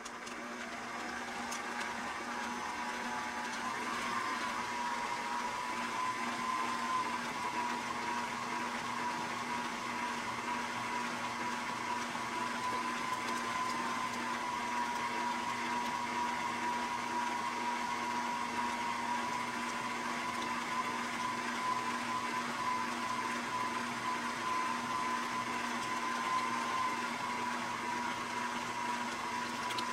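Electric stand mixer running, its beater working through thick cream cheese cheesecake batter. The motor whine rises in pitch over the first few seconds as the speed is turned up, then holds steady.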